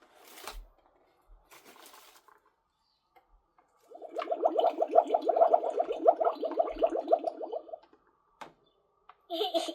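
Water bubbling and splashing for about four seconds in the middle, during water play with a toddler's bath-tub toy.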